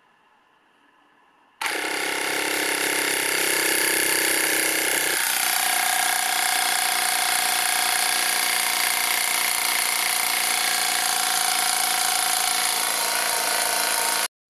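Small electric tyre-inflator air compressor switched on about a second and a half in and running steadily while inflating an e-scooter tyre. Its note changes about five seconds in, and it cuts off abruptly just before the end.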